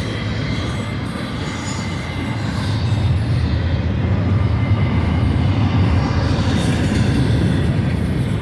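Union Pacific double-stack container cars rolling past, a steady rumble of steel wheels on the rails that grows louder about three seconds in, with a thin high squeal from the wheels.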